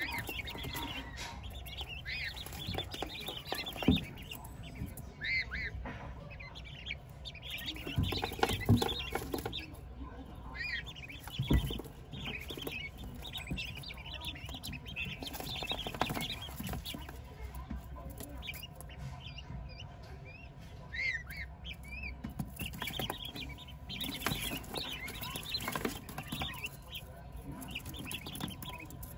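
A flock of four-week-old white blue-breasted quail chirping: many short, high peeps overlapping throughout, with a few dull thumps.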